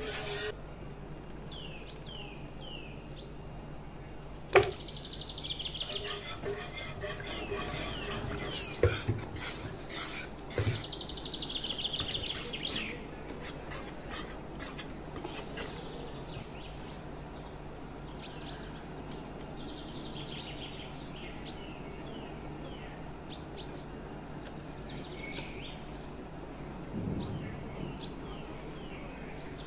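A wire whisk and utensils clinking and scraping against a metal pan, with a sharp knock about four and a half seconds in and a few lighter ones later. Birds chirp on and off in the background over a low steady hum.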